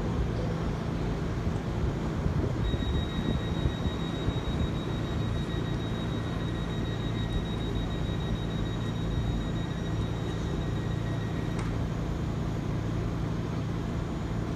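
Double-deck electric passenger train standing at a platform, its onboard equipment and ventilation giving a steady low hum. A thin, steady high whine joins in about three seconds in and stops about twelve seconds in.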